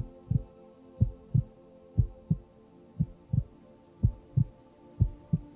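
A recorded heartbeat sound track: double lub-dub thumps, about one a second (around 60 beats a minute), over a soft steady hum.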